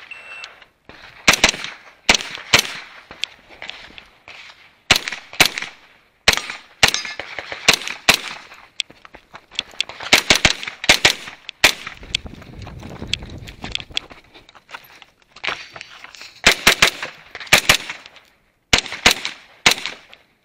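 Pistol-caliber carbine fired in quick strings of close double shots through a practical shooting stage, with pauses between strings as the shooter moves. It opens with a short electronic beep from the shot timer, the start signal.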